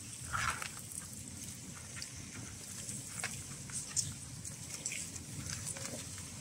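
Several cats chewing and crunching fish scraps, heard as a scatter of short crunches and clicks over a low steady rumble.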